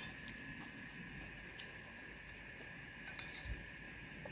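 A metal spoon clinking lightly against a ceramic plate, a few separate clicks while taking food, over a faint steady high-pitched hum.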